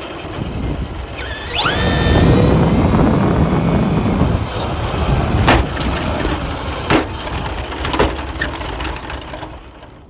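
RC car's motor and drivetrain whining up in pitch as it accelerates, then holding, over the rumble of its tyres rolling on pavement, picked up by a camera riding on the car. A few sharp knocks come as it bumps over the ground, and the sound dies away near the end as it slows to a stop on grass.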